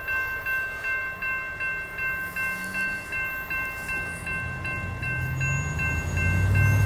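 Railroad grade-crossing warning bell ringing steadily at about two and a half strikes a second. In the last couple of seconds a low rumble builds underneath.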